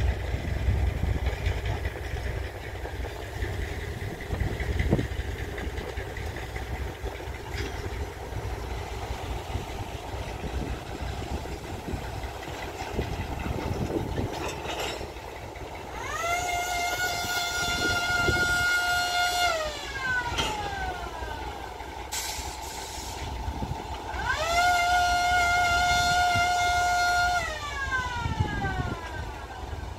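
Diesel locomotive air horn sounds two long chord blasts of about three seconds each, each ending with the pitch sliding down. Under and between them, the low rumble and clatter of the train's cars rolling along the track.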